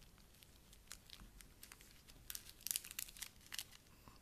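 Small plastic zip-lock bags of craft half-pearls crinkling faintly as they are handled, in scattered quick crinkles that bunch together in the middle.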